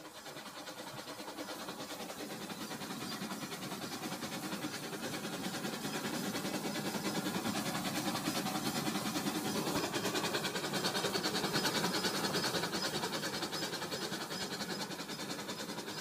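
A Rail King toy train's motor and wheels rattling steadily along its track. The sound grows louder as the train comes close, loudest about twelve seconds in, then eases a little.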